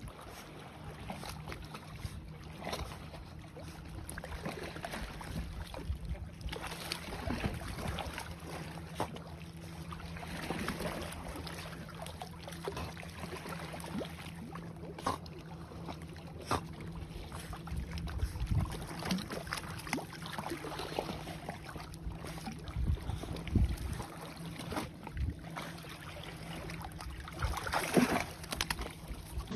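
Water lapping and splashing as a dachshund swims, over a steady low hum. Near the end, a louder rush of stream water splashing around the dog.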